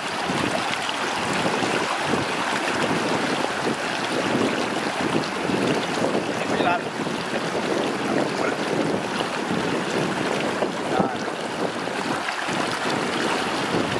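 Shallow mountain river rushing over rocks close by: a steady, even rush of water.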